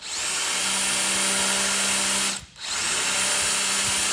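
Power drill spinning a hole saw, cutting a hole in a pickup truck's chassis. It runs steadily with a high whine, stops briefly a little past two seconds in, then starts again.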